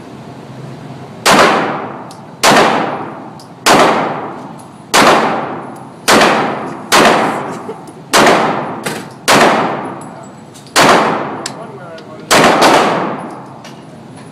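Pistol shots at a shooting range: eleven shots, mostly about one a second, with the last two fired in quick succession. Each shot rings out with a long echoing tail.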